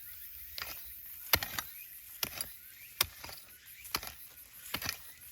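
Digging into garden soil by hand to harvest potatoes: a series of short, sharp strikes and scrapes at an uneven pace, roughly one a second.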